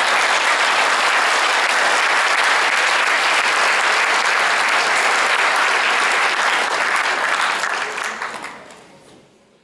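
An audience applauding, loud and steady, dying away over the last couple of seconds.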